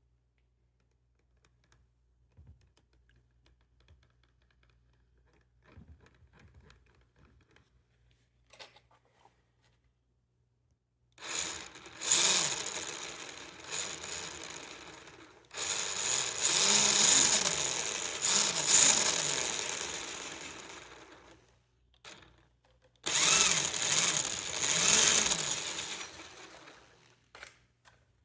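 Traxxas Rustler VXL 2WD's brushless motor driving its freshly rebuilt transmission in several throttle bursts, pitch rising and falling with each. The gears make an odd whirring-grinding noise, almost like gears slipping, that the owner cannot cure by moving the pinion gear closer or farther. Faint clicks come before the first burst.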